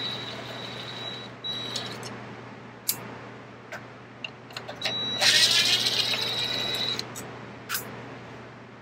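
Ridgid cordless driver on its lowest setting, backing Phillips-head screws out of a track saw's dust shroud. Its motor gives a high whine in three runs: one ending about a second and a half in, a short burst just after, and a longer run in the second half. Small clicks and taps come between the runs.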